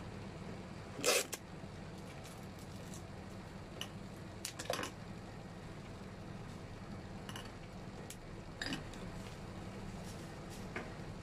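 Handling sounds of a florist arranging flowers with gloved hands: scattered sharp clicks and rustles, the loudest about a second in and others near five and nine seconds in, over a steady low hum.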